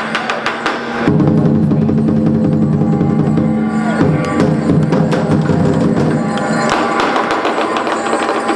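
Music with drums and percussion playing over sustained held tones.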